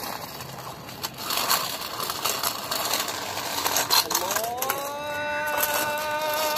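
A plastic toy car pushed by hand along a rough concrete ledge, its wheels grinding and rattling. About four seconds in, a pitched tone rises in and then holds steady.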